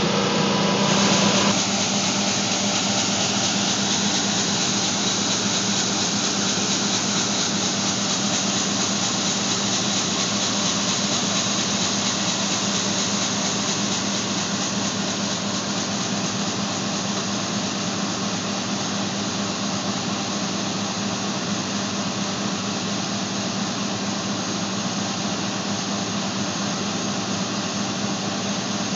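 John Deere combine harvester running steadily: a continuous drone of engine and threshing machinery with a steady low hum, shifting slightly about a second and a half in.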